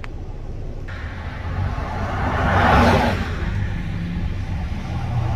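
Steady road and engine rumble of a moving car. A passing vehicle whooshes by, swelling and fading about three seconds in.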